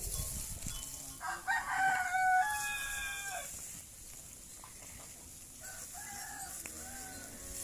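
A rooster crows once, starting about a second in: one long, stepped cock-a-doodle-doo lasting a couple of seconds. Fainter calls follow near the end.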